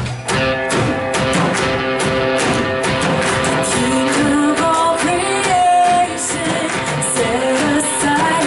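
Live worship band playing a song with guitar and a beat, a melodic line gliding over sustained chords.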